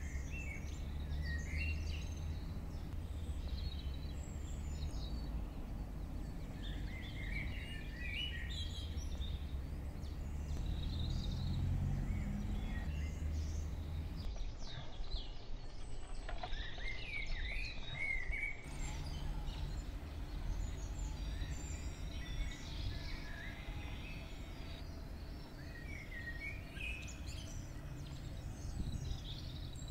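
Small birds chirping and twittering on and off, over a steady low rumble of background noise.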